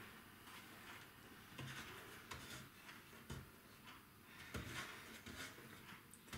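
Faint, scattered light knocks and clicks, a handful of them, from wooden workpieces being handled on the bench, close to near silence.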